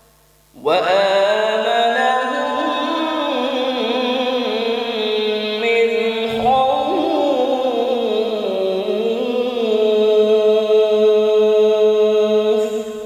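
A male qari chanting the Quran in Arabic (tilawat), one long melodic phrase drawn out over many seconds with a wavering, ornamented pitch. It is amplified through stage microphones, and it starts about half a second in and breaks off near the end.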